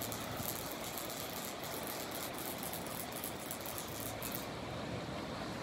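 Steady wash of sea surf against a rocky shore, an even hiss with no distinct strokes.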